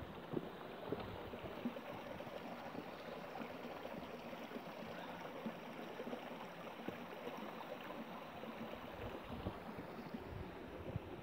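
Steady rush and babble of a moorland stream's running water, with small irregular splashy ticks through it.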